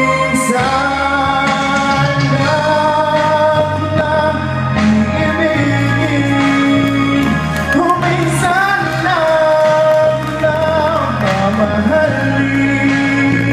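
Music with singing: a voice holding long, slightly wavering notes over a steady bass line.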